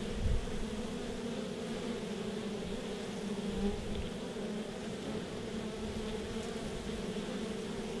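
Honey bees buzzing at a hive entrance: a steady, many-bee drone with a low hum and a higher overtone, and a brief low rumble just after the start.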